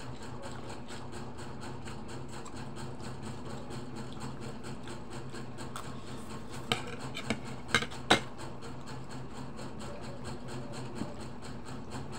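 Mealtime sounds at a table: a handful of sharp clicks and taps of a fork against plates, bunched together a little past the middle, over a steady low hum.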